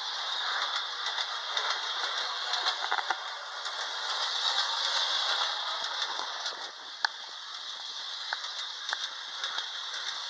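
Homemade Lionel maintenance truck running on three-rail O-gauge track, its small motor and wheels making a steady rattle with scattered clicks. It is a little louder in the middle, and there is one sharp click about seven seconds in.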